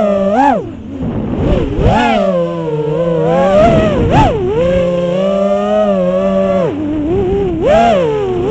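A 6-inch FPV quadcopter's Emax ECO II 2207 1900KV brushless motors spinning three-blade props, heard from the onboard camera as a loud whine whose pitch swoops up and down as the throttle is punched and chopped. The pitch dips about a second in, holds steady for a couple of seconds past the middle, and dips again near the end.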